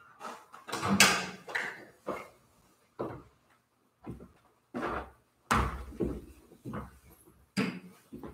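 A run of about a dozen irregular knocks and thumps, wooden-sounding handling noises with the loudest thuds about a second in and around five and a half seconds in.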